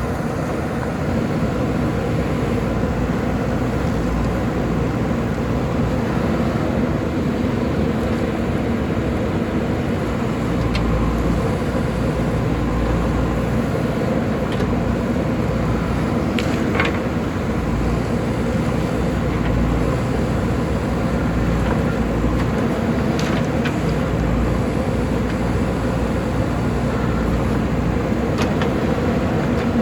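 JCB backhoe loader's diesel engine running steadily, with a few brief sharp clicks scattered through.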